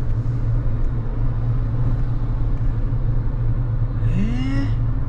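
Suzuki Jimny JB64W's 660 cc turbocharged three-cylinder engine and tyre noise heard from inside the cabin while driving steadily, a constant low drone. About four seconds in, a man makes a short rising vocal sound.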